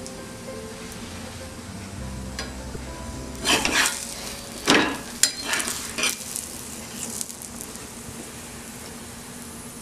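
Ghee sizzling steadily under an aloo paratha on a hot tawa. Between about three and a half and six seconds in come a few loud bursts of metal-spatula scraping and flaring sizzle as the paratha is lifted and turned.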